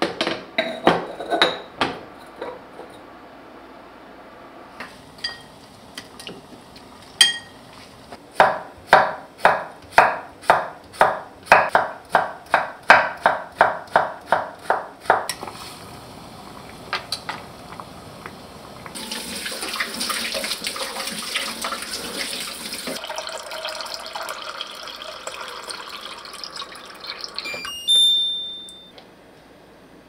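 Kitchen work: a few knocks at the start, then a steady run of chopping strokes, about two or three a second for several seconds. After that comes a rush of running water for several seconds, ending in one loud sharp ringing knock.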